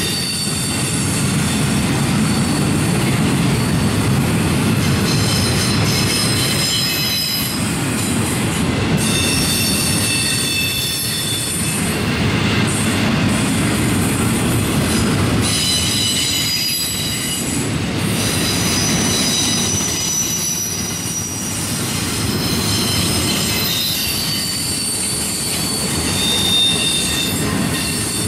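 Intermodal freight cars rolling past on curved track: a steady heavy rumble of steel wheels on rail, with high wheel squeals that come and go every few seconds.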